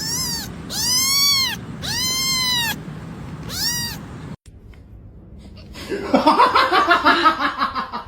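Cat meowing four times, each call rising and then falling in pitch. After a break, a louder, harsher, rapidly wavering sound fills the last couple of seconds.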